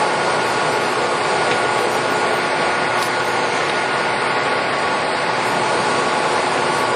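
American Pacemaker 27" x 240" engine lathe running with its power feed engaged: a steady mechanical drone with a faint high gear whine.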